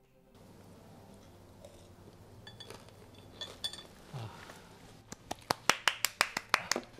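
Chopsticks working at a plate of crisp pan-fried gyoza: a quick run of sharp clicks and crackles over the last two seconds, after a quiet stretch.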